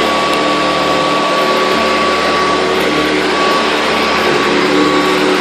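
Hoover Convertible upright vacuum with a direct-air motor running steadily on low carpet, a constant rushing noise with a steady motor whine.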